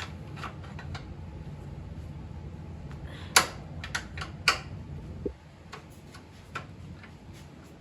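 A few sharp metallic clicks and clinks of hand-tool work on motorcycle bolts, heard over a steady low hum that cuts off about five seconds in.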